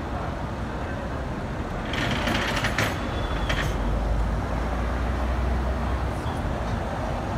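Vintage tram rolling slowly past on street rails: a low rumble from its running gear that grows heavier in the second half, with a short burst of high metallic ringing and clatter about two seconds in.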